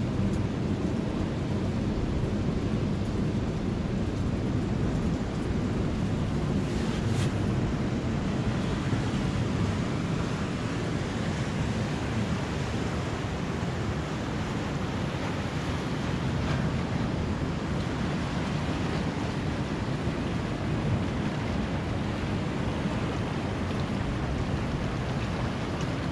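Ocean surf washing onto a beach, a steady rush of breaking waves, with wind buffeting the microphone.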